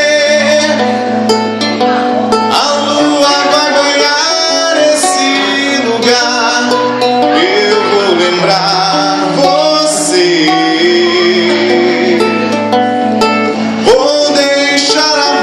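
Live MPB song played on acoustic guitar with accompaniment: a passage between the sung lines.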